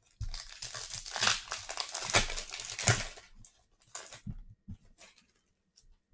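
Crinkly foil wrapper of a baseball card pack being torn open and crumpled for about three seconds, followed by a few light taps as the cards are handled.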